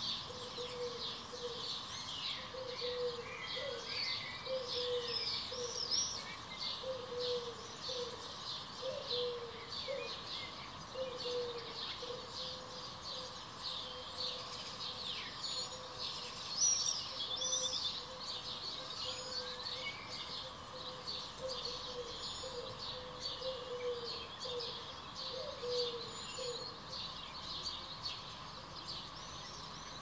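Many small birds chirping and twittering continuously in quick high notes, with a lower repeated call underneath that stops a few seconds before the end, over a faint steady hum.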